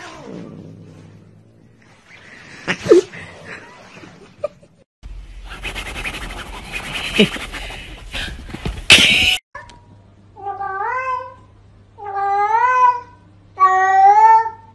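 A cat meowing repeatedly: four drawn-out meows in the last five seconds, each rising in pitch and then held. Before them come scattered knocks and a stretch of noise.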